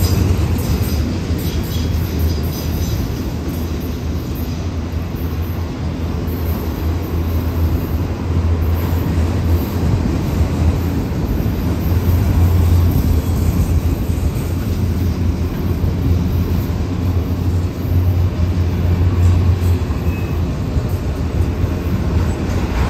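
Autorack freight cars rolling past at trackside: a steady, unbroken low rumble of steel wheels on rail.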